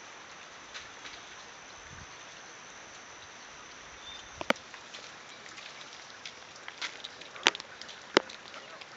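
Steady rain falling, with sharp taps of drops hitting close by. The three loudest taps come about four and a half, seven and a half and eight seconds in.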